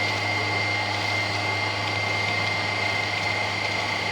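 Swimming pool filter pump running steadily while the filter is backwashed. It makes an even hum with a thin, steady high whine.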